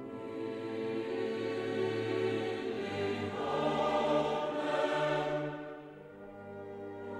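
Background choral and orchestral music: sustained chords that swell to a peak about halfway through, then fall back.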